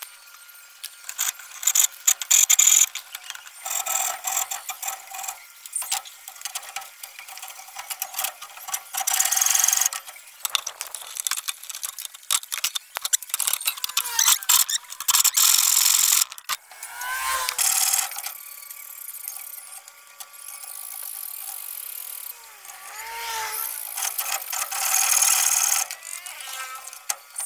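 Hacksaw cutting steel rods, coming in bursts of rasping strokes, with a few short high squeals in between.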